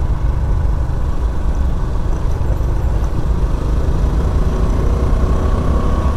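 Steady low rumble of a small motorcycle on the move, a Honda Pop 110i: engine and wind noise picked up by an action camera's microphone.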